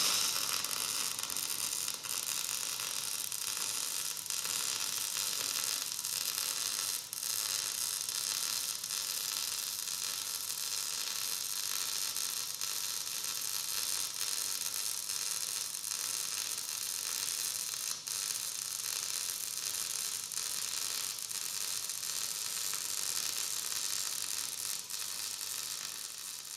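Electric arc welding a fill pass into a weld-prepped joint in thick steel plate: the arc's steady crackling sizzle, which trails off at the very end as the weld stops.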